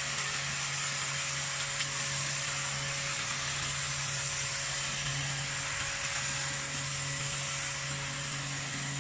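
Electric high-pressure washer running steadily, a constant motor hum under the hiss of spraying water, used to clean the dismantled parts of an air conditioner.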